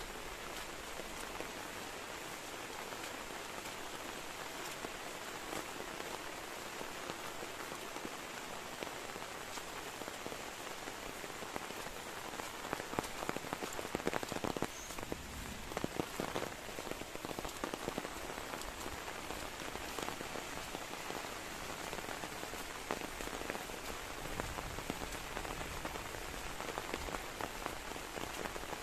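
Rain falling steadily, a dense patter of drops, with a spell of louder, heavier drop hits in the middle.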